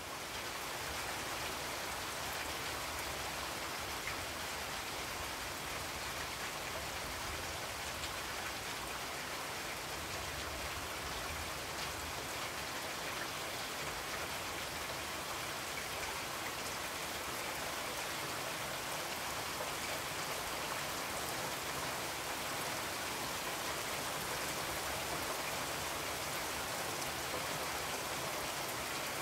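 Steady rain, an even hiss of rainfall with no breaks or changes.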